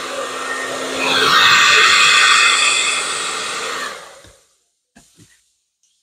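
Hand-held blow dryer running, blowing poured acrylic paint across a canvas. Its rush swells about a second in and fades out about four seconds in as it is switched off. Two faint clicks follow.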